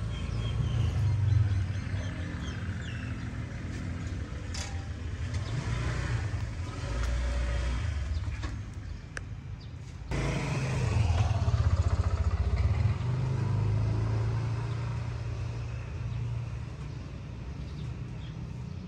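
Low, steady rumble of motor vehicle engines running nearby, like street traffic. It breaks off and starts again louder about ten seconds in.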